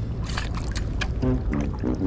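Background music comes in about a second in, over a steady wind and water rumble on the microphone; a few sharp clicks come just before it.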